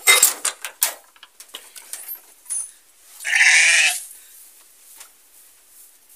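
A sheep bleats once, loudly and briefly, about three seconds in. In the first second there are several sharp knocks and rattles.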